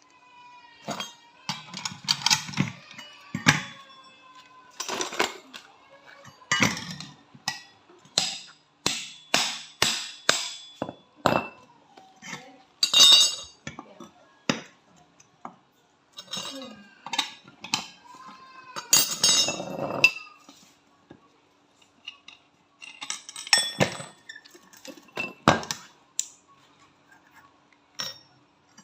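Metal tools and parts of a Honda ADV 160 scooter's CVT being taken apart, with an irregular run of sharp metallic clinks, knocks and taps, some ringing briefly.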